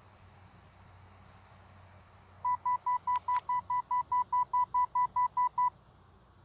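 A rapid run of about sixteen short, identical electronic beeps, about five a second, lasting roughly three seconds, with two sharp clicks partway through.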